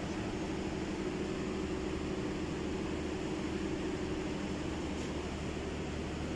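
Steady mechanical hum of workshop background noise, a constant hiss with a low drone; a higher tone in the hum fades out about four seconds in.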